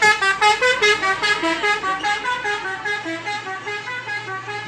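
A truck's multi-tone 'telolet' musical horn playing a quick tune of short stepped notes, about five a second, growing slightly fainter toward the end.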